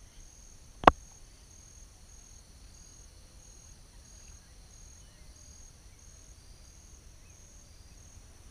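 Insects chirping faintly in a steady pulsing rhythm, a little under two pulses a second, with one sharp click about a second in.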